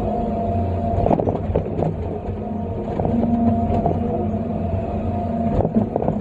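John Deere 350D excavator's diesel engine and hydraulics running steadily, heard from inside the cab, with short clunks and rattles about a second in and again near the end.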